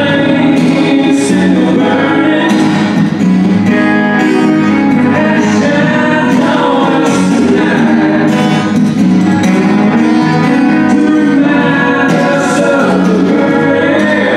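Live band playing a song: acoustic guitar strumming under sung vocals, with no break.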